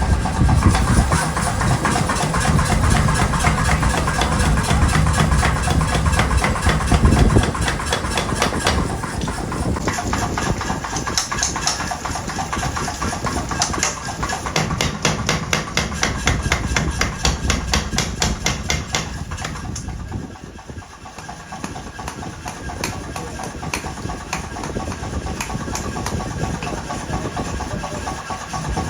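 A machine motor running steadily, with a fast, even run of hammer strikes, several a second, through the middle stretch.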